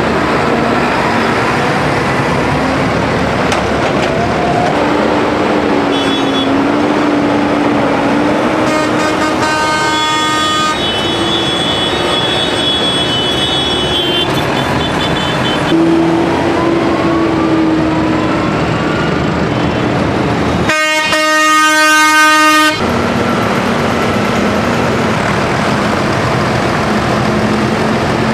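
Diesel tractor engines running as a line of tractors drives slowly past, with vehicle horns honking several times; the loudest is a horn blast of about two seconds roughly three quarters of the way through.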